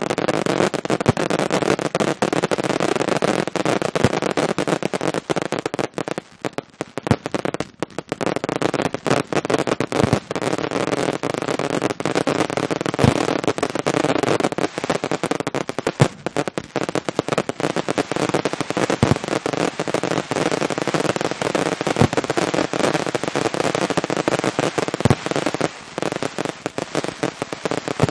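Fireworks display: a dense, continuous barrage of shots, bursts and crackling in quick succession, with a brief lull about six seconds in.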